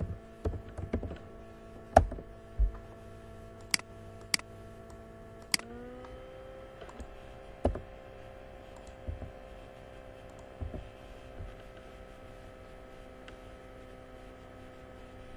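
Computer keystrokes and mouse clicks: a dozen or so separate sharp clicks at uneven intervals, the loudest about two seconds in, over a steady low hum that shifts slightly higher in pitch partway through.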